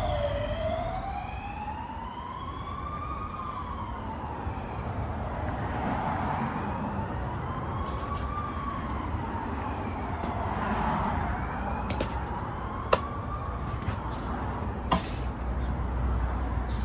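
An emergency-vehicle siren wailing, its pitch slowly rising and falling about every five seconds. Two sharp clicks come in the second half.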